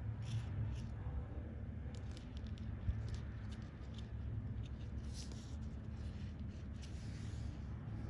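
Faint, scattered rustles and small ticks of fingers working fishing line onto a treble hook while tying up a soft-bait rig, over a steady low hum.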